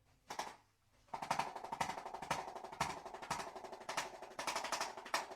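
A single knock, then from about a second in a steady, very rapid train of percussive taps that keeps going.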